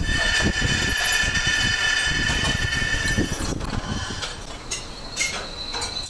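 Metal lathe boring out the inside of a cast-iron pump housing: over the machine's running, the cutting tool gives a steady high-pitched squeal that stops about three and a half seconds in. After that the lathe runs on with a few sharp clicks and knocks.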